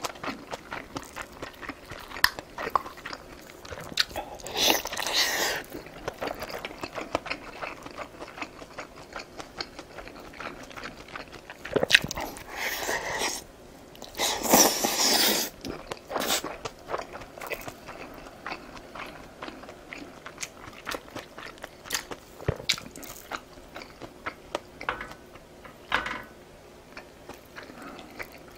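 Close-miked eating of large Korean dumplings from dumpling soup: wet chewing and biting, with many short clicks and three louder noisy stretches of about a second each, one about five seconds in and two around the middle.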